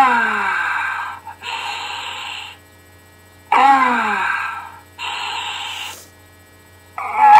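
Sound effects in a repeating cycle: three times, about every three and a half seconds, a sudden sound slides steeply down in pitch, and each is followed by about a second of hiss.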